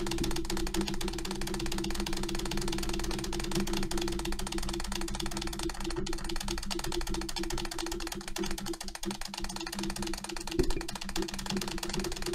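Rapid tapping on an Acer keyboard's spacebar, a fast, even stream of plastic key clicks at about eight a second, over a steady low hum.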